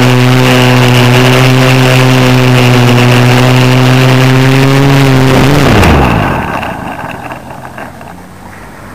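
Clone F450 quadcopter's four motors and propellers buzzing steadily in flight, heard from the onboard camera. About five and a half seconds in, the pitch slides down and the buzz dies away as the craft sets down and the motors stop.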